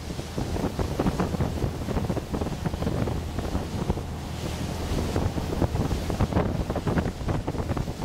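Wind buffeting the microphone aboard a small ferry under way, over the rush of water from its wake and a steady low engine drone.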